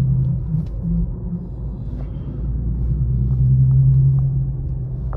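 Infiniti Q50's 3.7-litre V6 engine and road rumble heard from inside the cabin while driving: a steady low drone that eases off about half a second in and builds again from around three seconds.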